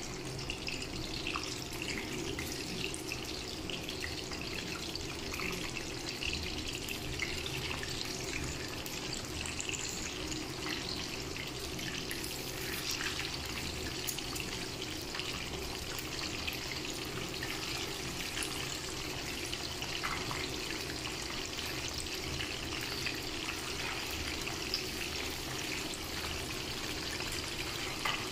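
Small whole fish frying in oil in a pan: a steady sizzle with scattered small crackles and pops.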